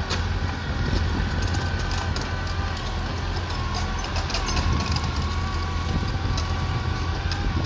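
Heavy diesel machinery running steadily: a deep engine rumble with a steady whine over it and scattered light clanks and clicks.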